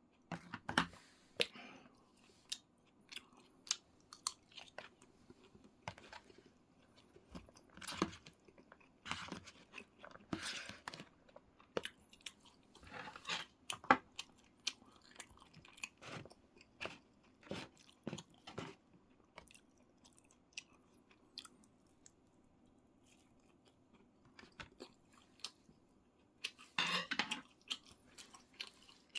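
Close-up eating sounds: a person chewing, with irregular moist clicks and crunches, pausing for a few seconds past the middle, then a brief louder noisy burst near the end.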